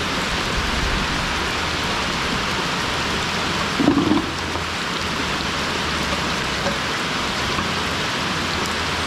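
Heavy rain falling steadily, with a short dull thump about four seconds in.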